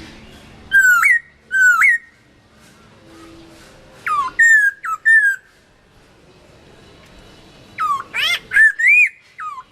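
Chinese hwamei (gabichō) singing: loud, clear whistled notes that slur up and down, in three bursts of repeated phrases, two notes, then four, then a quicker run of several near the end.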